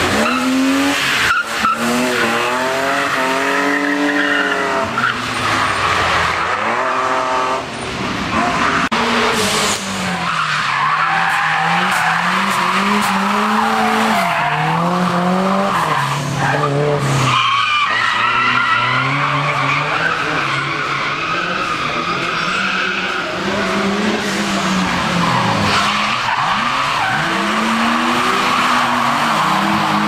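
Drift cars' engines revving hard, rising and falling again and again as they slide through hairpin bends, with tyres squealing and skidding on the tarmac. There are a couple of sharp cracks near the start.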